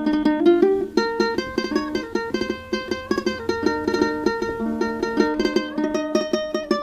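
Music: a quick, lilting melody played on a plucked string instrument, with rapid separate notes.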